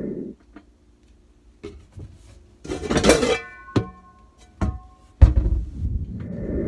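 A frying pan is pulled out of a cupboard of cookware: a loud clatter of pans knocking together about three seconds in, with metal ringing on for about a second. A heavy thud follows just after five seconds as the cabinet door shuts.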